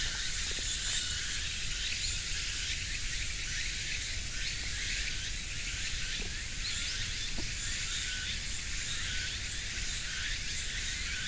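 Steady outdoor insect chorus: a high hiss full of quick repeating chirps that holds unchanged throughout.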